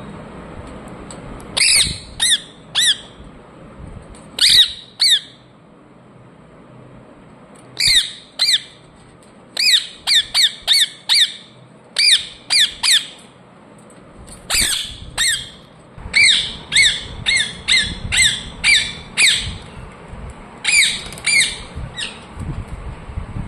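Ringneck parrot squawking: short, sharp, high-pitched calls in bunches of two to six, with pauses of a second or more between the bunches.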